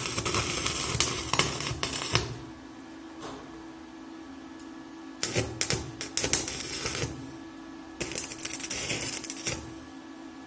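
Stick (MMA) welding arc from a ZX7-250 mini inverter welder crackling in three stretches of about two seconds, two seconds and a second and a half. The arc goes out between them, leaving a quieter steady hum.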